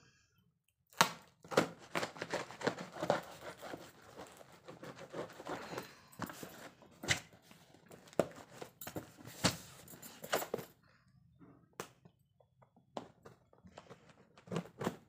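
Hands handling a cardboard parcel wrapped in clear plastic film: crinkling of the plastic and knocks against the cardboard. It starts with a sharp knock about a second in and goes on densely for roughly ten seconds, then thins to scattered taps.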